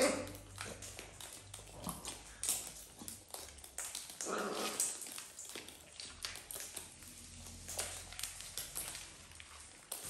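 Macaws and a cockatoo feeding from a metal tray of seed mix: a scatter of small clicks and taps from beaks cracking seeds and knocking on the tray. A dog gives a short vocal sound about four seconds in.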